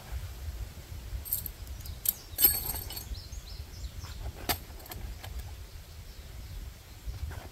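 Camping gear being packed into a haversack: metal tent stakes clinking and rattling with a brief metallic ring, a few sharp clicks and knocks, the loudest about two and a half seconds in and another single click about four and a half seconds in, over a low rumble.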